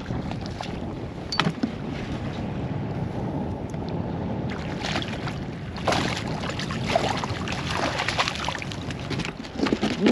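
Water splashing and sloshing at a fishing kayak, with wind on the microphone and a few sharp knocks, the clearest about a second and a half in and about six seconds in.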